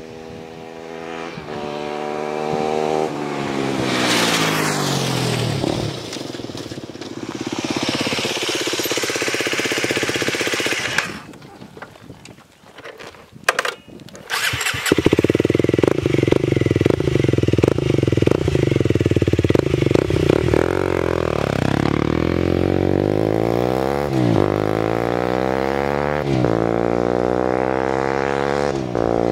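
Aprilia SX 125's single-cylinder four-stroke through a GPR Furore Carbon aftermarket exhaust. With the dB-killer fitted, the bike accelerates in, its pitch dropping as it passes about four seconds in, then fades away. After a short quiet gap with a few clicks, the engine starts up close by without the dB-killer and runs steadily, then the revs rise and fall several times near the end.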